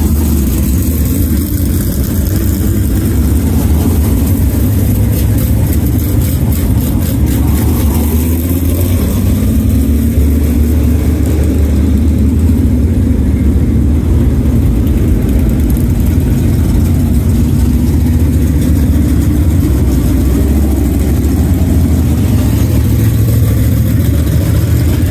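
Dirt late model race cars' V8 engines running at low speed as the cars roll past in line, a loud, steady, deep rumble with a brief rise in revs now and then.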